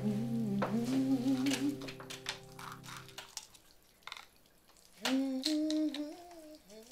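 A woman humming a slow tune, with a few light clicks of a plastic pill organizer as pills are dropped into it. A steady low drone runs under the humming and stops about halfway through, leaving a short lull before the humming comes back.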